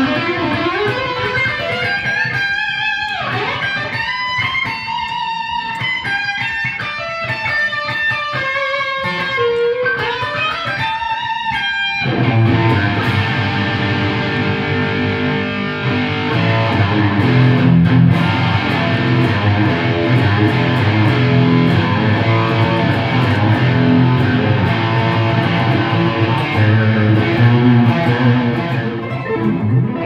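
Ibanez PIA electric guitar played through a Friedman Pink Taco 20 amp with a Vox delay in the effects loop. It opens with single-note lead lines with pitch bends and glides, then about twelve seconds in changes to thicker, lower, heavier riffing.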